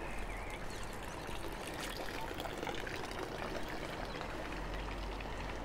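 Water trickling steadily from a small fountain spout into its stone basin.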